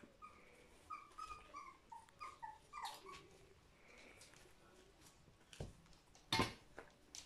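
Puppies whining in a run of short, high cries during the first three seconds. One sharp, loud knock comes about six seconds in.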